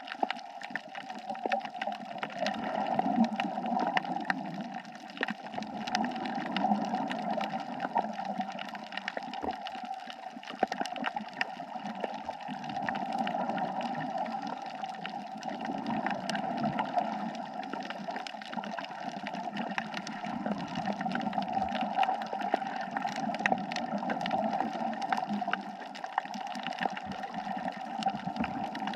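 Underwater sound on a coral reef: a steady rush of water with many faint scattered clicks, swelling and easing every few seconds.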